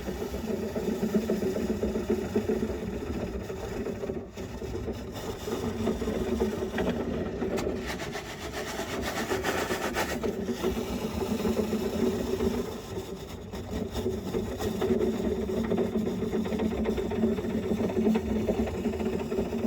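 A small electric motor running steadily, a powered tool clearing built-up lint from a dryer vent duct.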